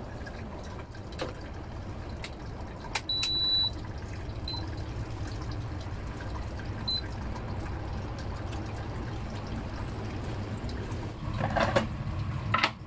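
Kitchen work: a steady low hum under a few sharp clicks and knocks. About three seconds in there is a short electronic beep, then two briefer beeps, and there is a clatter of utensils near the end.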